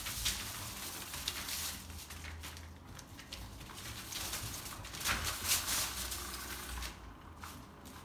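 A Maine Coon kitten and a ferret scuffling and rustling as they scramble over artificial turf and a fabric cat-toy mat. It comes in irregular bursts, loudest at the very start and again around five to six seconds in.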